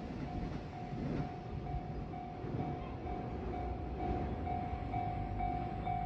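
Japanese railway level crossing warning bell starts just after the beginning and rings steadily at about two strokes a second, over a low background rumble. The bell signals that a train is approaching the crossing.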